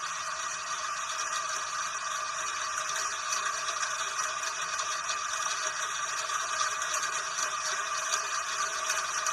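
Steady rain: an even hiss flecked with countless small drop ticks, holding the same level throughout.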